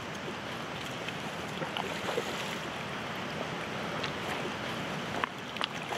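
Steady rush of a fast-flowing river, with a few faint clicks, two of them stronger near the end.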